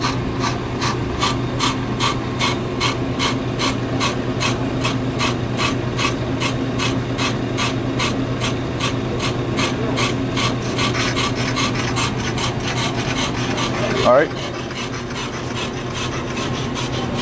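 Ammco brake lathe running while its cutting bit scrapes the face of a spinning, warped brake rotor on the first cut, the scraping noise wanted when the bit touches the metal. The scrape pulses regularly, about three times a second, over a steady motor hum, and fades after about eleven seconds. A brief rising squeal comes about fourteen seconds in.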